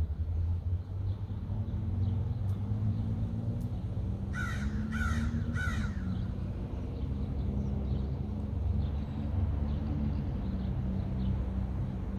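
Three harsh bird calls in quick succession, about half a second apart, a little before the middle, over a steady low rumble of wind on the microphone.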